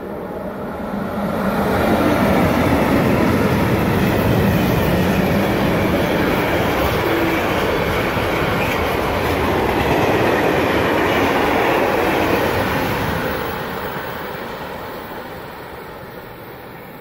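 Freight train hauled by an ÖBB class 1144 electric locomotive passing close by: wheels running on the rails and wagons clattering over the joints. The sound builds over the first two seconds, stays loud for about ten seconds as the wagons go by, then fades as the last wagons pull away into a tunnel.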